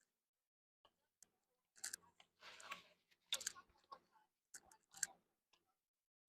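Close mouth sounds of eating a sandwich: a few short bursts of biting and chewing with wet clicking smacks between them.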